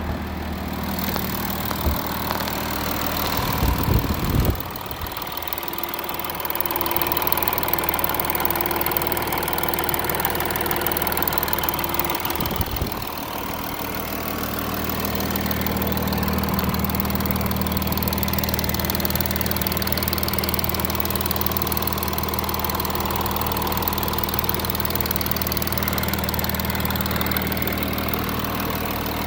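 Audi A6 3.0 TDI V6 diesel engine idling steadily when fully warm, with two brief low bumps about 4 and 13 seconds in. The owner suspects camshaft and timing-chain tensioner damage from this engine noise.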